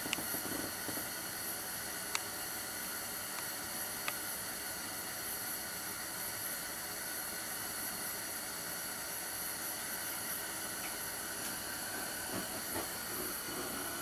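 Propane radiant heater burning with a steady gas hiss from its red-hot ceramic burner, broken by a few small clicks.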